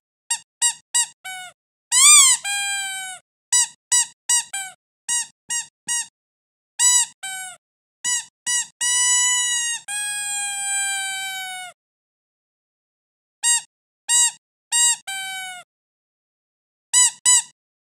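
A dog's squeaky toy being squeezed over and over: quick short squeaks in runs of two to five, broken by a few longer drawn-out squeaks that sag in pitch as they are released, one lasting nearly three seconds, with short pauses between runs.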